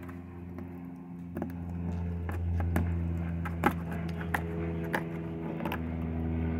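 Kitchen knife cutting down through a flathead catfish's tail section on a plastic tray, with scattered sharp clicks and crunches as the blade goes through bone and taps the tray. Under it runs a steady low motor hum that grows louder about two seconds in.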